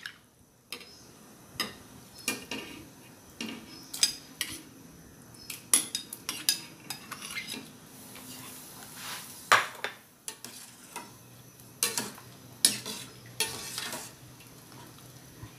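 A metal ladle stirs chicken pieces in a large metal pot of boiling tom yum broth. It clinks and knocks against the pot at irregular intervals, with scraping between the strikes.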